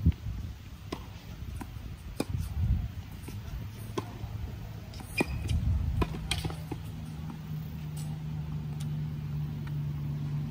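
Tennis ball struck by a racket and bouncing on a hard court: sharp pops every second or so, the loudest at the very start. A steady low hum comes in about six seconds in.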